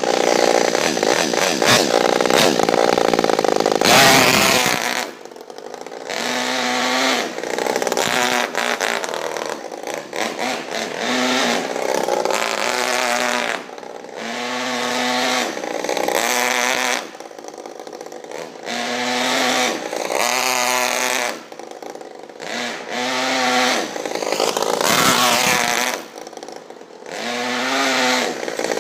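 Modified Saito FA-50 four-stroke glow engine in an RC car, held at high revs for a few seconds and then revved up and backed off repeatedly, a burst every couple of seconds. Its two-speed transmission is not set to shift.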